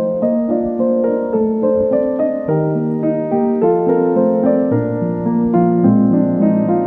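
Background music: a piano-like keyboard playing a steady run of short notes over low chords.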